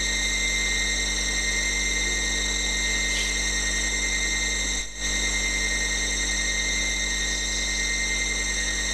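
Steady electrical hum and hiss with several high, steady whining tones, dropping out briefly about five seconds in.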